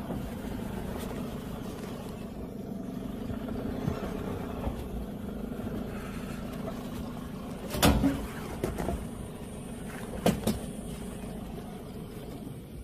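A vehicle engine idling steadily, with two sharp knocks about eight and ten seconds in.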